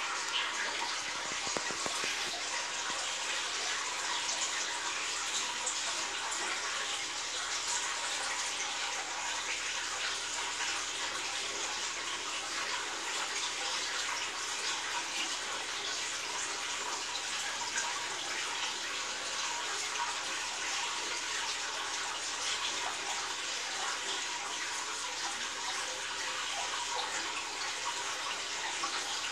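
Steady splashing and trickling of circulating water in a fish tank.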